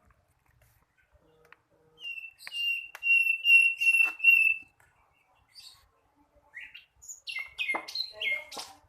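A young sikatan londo flycatcher still learning its song. It gives a quick run of chirps on one pitch for a few seconds, then after a pause a few short, varied notes mixed with sharp clicks near the end.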